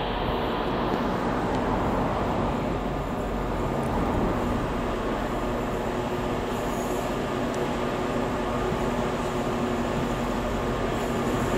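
British Rail Class 66 diesel locomotive approaching at the head of a container freight train: its two-stroke V12 engine drones steadily, mixed with wheel and rail noise from the wagons.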